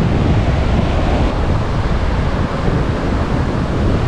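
Wind gusting across the microphone, a low rumbling buffet, over the steady wash of breaking surf.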